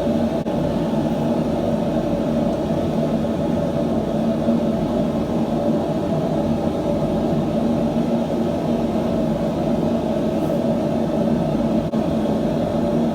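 A steady mechanical roar with a low hum, unchanging throughout.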